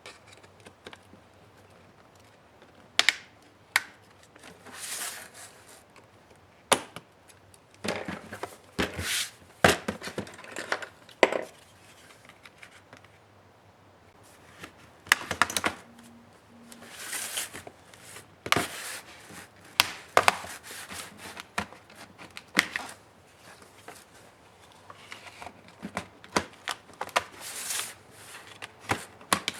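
Irregular clicks, taps and short scrapes of hand tools working on the plastic case of an HP ProBook 430 G6 laptop being taken apart.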